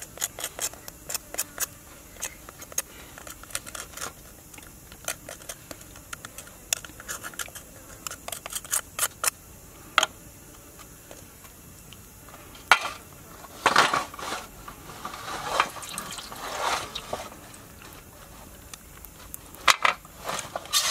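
Knife cutting through the shell of a cooked king crab: a quick run of sharp clicks and cracks. Later come a few louder, longer cracking and wet squelching sounds as the shell is pried apart by hand.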